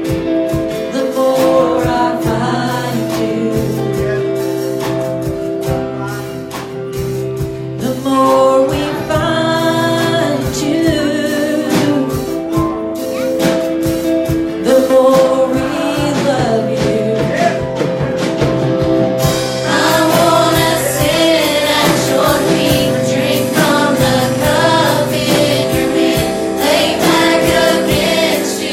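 Gospel worship song: singing over steady chords with a regular beat, growing fuller about two-thirds of the way through.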